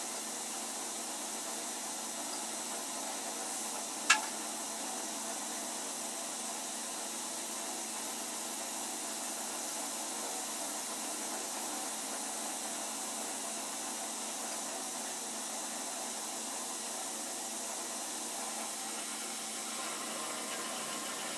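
Milling machine running steadily, with one sharp knock about four seconds in.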